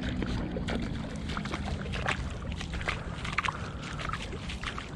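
Shallow water lapping and trickling over a tidal sand flat, full of small crackles, over a low steady rumble.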